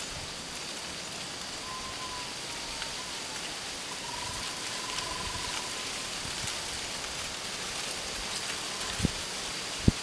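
Steady rushing outdoor noise with a thin, steady high tone above it. A faint wavering whistle-like call comes in twice, about two and four seconds in, and two short low thumps come near the end.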